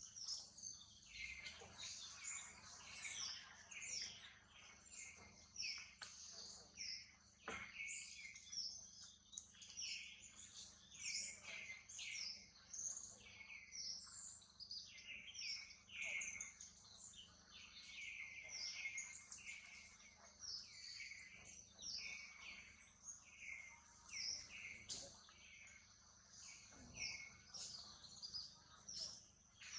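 Faint birds chirping continuously, many short, quick calls a second, over a steady high tone.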